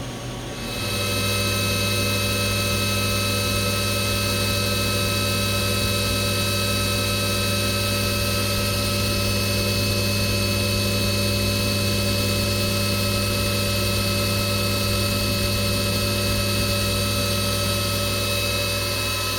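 CNC milling machine's spindle spinning up about a second in, then running with a steady whine at 6,000 RPM.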